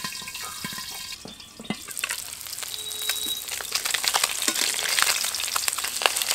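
Magur catfish frying in mustard oil in a covered kadai: the hot oil crackles and spatters hard against the lid with many sharp pops. The crackling thickens and grows louder about two seconds in.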